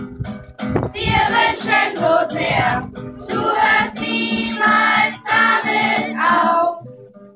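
Children's choir singing with acoustic guitar accompaniment. The singing stops about half a second before the end, leaving a brief near-silent pause.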